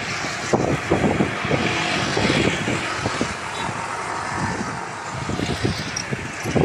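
Road traffic noise: a steady hiss of passing vehicles with irregular low rumbling surges.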